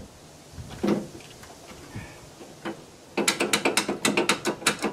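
Socket ratchet wrench clicking rapidly, about nine clicks a second, from about three seconds in, as a bolt is backed out. A single knock comes about a second in.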